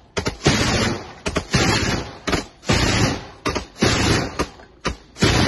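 ZU-23-2 twin 23 mm anti-aircraft autocannon firing a string of short bursts, about one burst a second.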